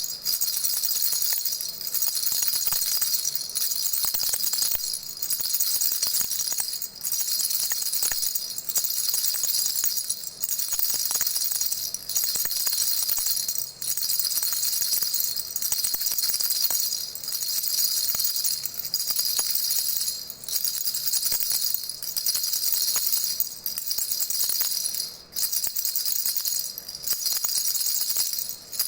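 Baby rattle with small jingle bells being shaken steadily: a bright, high jingling that breaks off briefly every second and a half to two seconds.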